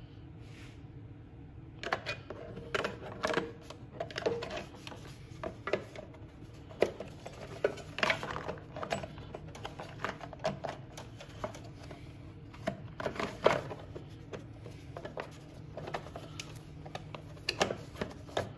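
Plastic engine side cover on a Briggs and Stratton 250cc snowblower engine being fitted by hand: irregular clicks and knocks of plastic against the engine as it is pushed and snapped into place, starting about two seconds in.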